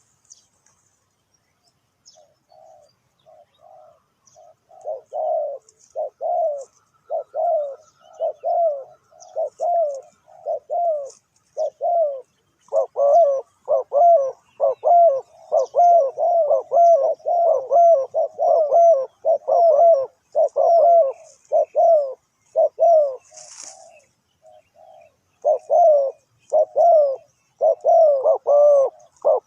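Spotted doves cooing: a long run of short, low coo notes that start sparse and become a dense, overlapping chorus about halfway through, with a short pause near the end before resuming. Faint high chirps of small birds sound behind them, and there is a brief hiss just before the pause ends.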